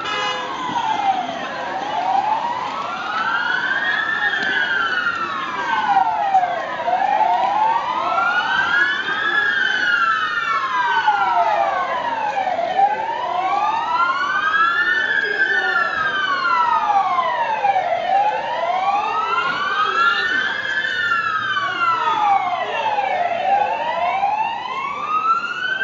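Police sirens wailing, sweeping slowly up and down in pitch about every five seconds, with two overlapping wails slightly out of step.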